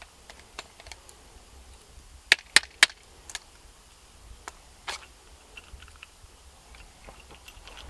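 Sharp clicks and clacks of a shot-up zamak-bodied P.A.K. blank-firing pistol being worked and pulled apart by hand. There are three loud clacks in quick succession a little over two seconds in, a few single clicks after them, and lighter ticks in between.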